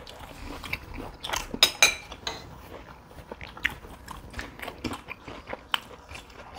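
People eating at a table: chewing and biting food, with scattered clicks and clinks of cutlery on plates, the loudest two clinks close together about two seconds in.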